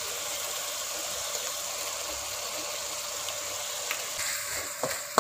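Onion-tomato gravy frying in oil in an aluminium kadai, a steady sizzle. Near the end the ground masala paste goes into the pan with a few short knocks.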